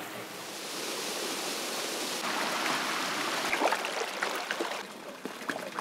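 A shallow ravine stream rushing over flat rocks: a steady wash of running water with small splashes.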